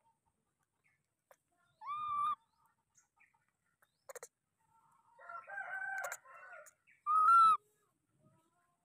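Baby macaque giving two short, clear coo calls about five seconds apart, each rising then holding, with a softer jumble of calls between them.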